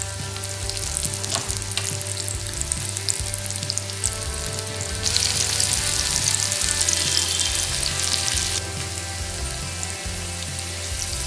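Freshly added besan-battered okra pieces deep-frying in hot oil, a steady crackling sizzle. It gets abruptly louder about five seconds in and drops back a few seconds later.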